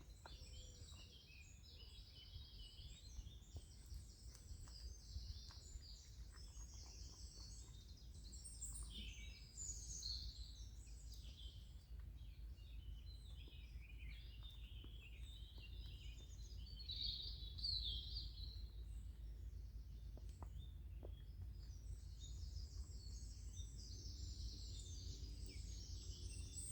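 Woodland birdsong: several small birds chirping and trilling throughout, over a low steady rumble.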